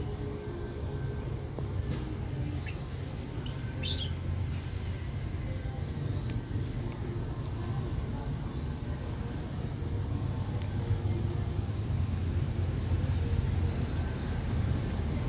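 Steady high-pitched insect drone over a continuous low rumble, with a few brief high chirps about three and four seconds in.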